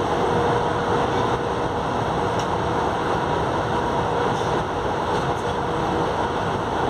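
CPTM Series 8000 electric train heard from inside a motor car: a steady running noise from the traction motors and running gear, with a held whine, at an even speed.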